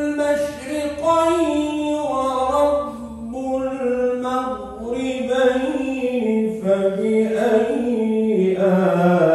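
A man reciting the Quran in the melodic chanted style, holding long notes that bend and step between pitches in unbroken phrases. The line sinks lower in pitch toward the end.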